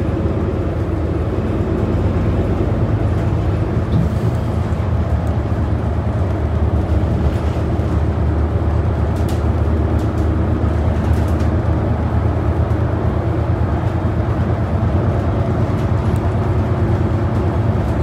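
Cabin noise of a New Flyer Xcelsior XD40 diesel city bus under way: the Cummins L9 inline-six diesel engine runs with a steady low drone over road noise. A few faint rattles come through about halfway in.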